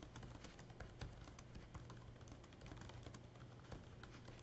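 Faint typing on a computer keyboard: quick, irregular keystroke clicks as a sentence is typed, over a low steady hum.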